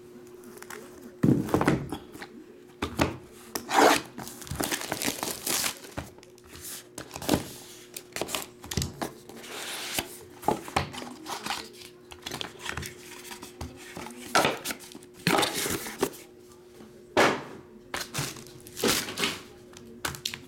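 Hands unwrapping and opening a shrink-wrapped trading-card box: plastic wrap crinkling and tearing, with scattered knocks and scuffs of cardboard and plastic at irregular moments.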